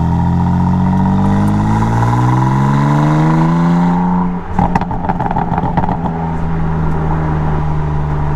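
2016 BMW M3 Competition Package's twin-turbo straight-six accelerating, its note rising steadily for about four seconds. The throttle then lifts and the exhaust lets out a quick burst of pops and crackles on the overrun, and the engine settles into a steady lower drone with a few stray crackles.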